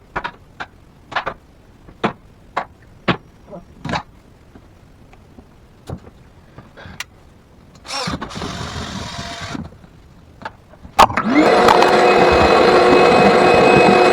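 Clicks and knocks of equipment being handled, a short burst of motor noise near the middle, then a vacuum cleaner switched on about eleven seconds in and running loud and steady.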